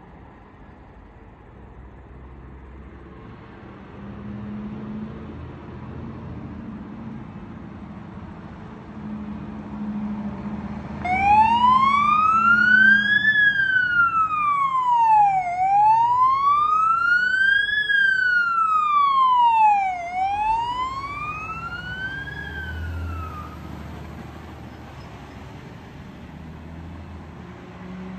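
Fire engine approaching on an emergency run, its engine rumble growing louder. About a third of the way in its wailing siren starts, sliding slowly up and down in pitch about three times. The siren gets quieter as the truck passes, then stops.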